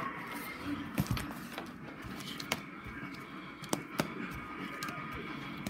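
Handling noise from the plastic sleeves of a DVD/CD wallet being leafed through: scattered sharp clicks and light rustling, the loudest clicks about a second in and near four seconds in.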